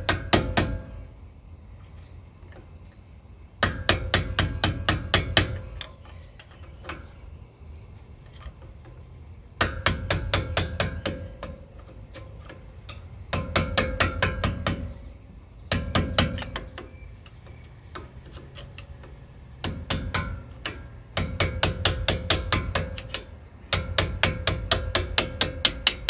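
Hammer rapidly striking a screwdriver used as a drift to drive a front brake caliper pin out of a Ford Bronco / F-150 caliper. The metal-on-metal blows come in repeated bursts of several strikes a second, each burst lasting one to two seconds with short pauses between, and a faint ring sounds with the strikes.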